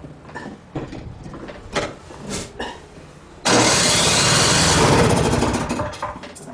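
A few knocks and clicks of handling, then a gas snowblower engine suddenly catches about three and a half seconds in. It runs loudly for a couple of seconds and dies away near the end.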